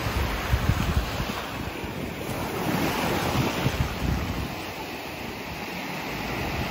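Small ocean waves breaking and washing up a sandy beach, with wind gusting on the microphone, strongest in the first second or so.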